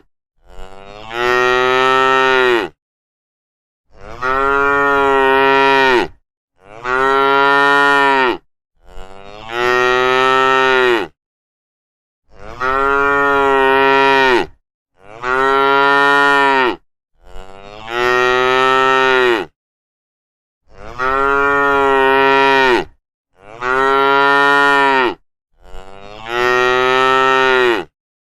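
Cow mooing over and over: about ten long, drawn-out moos of roughly two seconds each, separated by short silent gaps.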